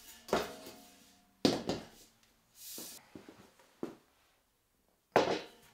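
Sharp knocks of the metal router-table frame being handled and set down, three in all, the first two leaving a short metallic ring; a brief hiss and a few light clicks in between.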